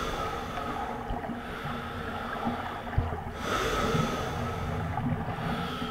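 A person's heavy breathing, swelling and fading about every two seconds, over a low rumble, with a single dull thump about three seconds in.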